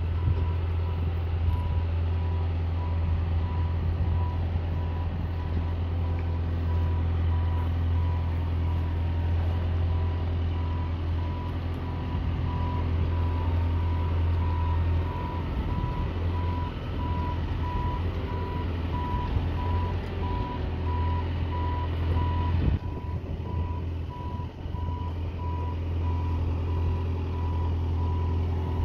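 A truck backing a boat trailer down a launch ramp: its reversing alarm gives an even run of short beeps over the low, steady running of its engine.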